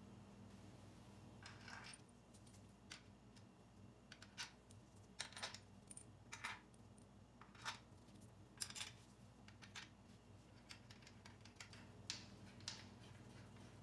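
Irregular light metallic clicks and taps of small steel bolts being set into the bolt holes of a small-engine crankcase cover, over a faint steady hum.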